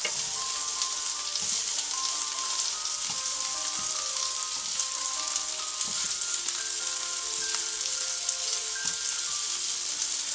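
Halved Brussels sprouts sizzling steadily in olive oil and butter on a hot grill pan, with a few soft knocks of kitchen tongs as they are turned over.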